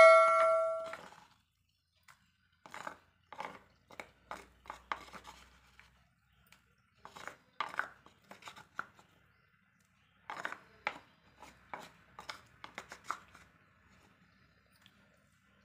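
A ringing metal clang fades away within the first second. Then come irregular clusters of soft knocks and scrapes from a wooden pestle pounding and grinding tomato chutney in a stone mortar.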